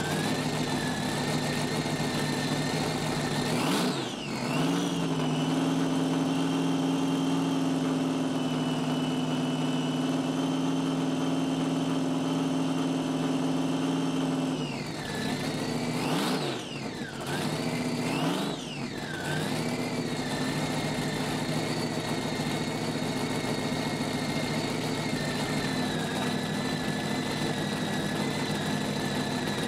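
Roots-supercharged V8 powerboat engine running with open exhaust pipes. About four seconds in it is revved up and held at a raised, steady speed for some ten seconds, then dropped back. It is blipped twice and settles to a steady idle.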